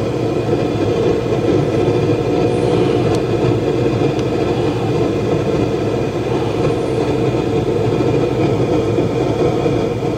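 Newly installed BOSS BV9364B head unit playing through the car's speakers while its volume, bass and treble are adjusted: a steady, even, noisy sound with no clear beat.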